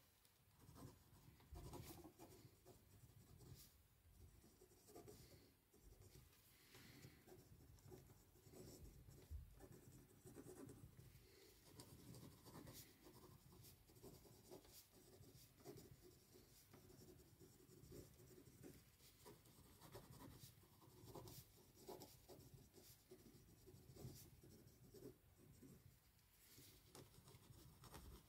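Handwriting on paper: faint, irregular scratching strokes of a pen moving across the page.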